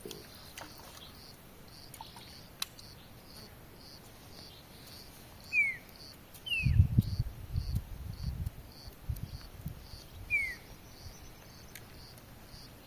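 An insect chirping in a steady rhythm, about three chirps a second, with three short falling bird calls. About halfway through, a low rumbling noise runs for about four seconds and is the loudest sound.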